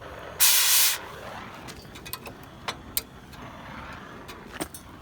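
Cutting torch hissing steadily, with a loud rush of gas lasting about half a second near the start and a few sharp pops and crackles later as the flame works on the metal.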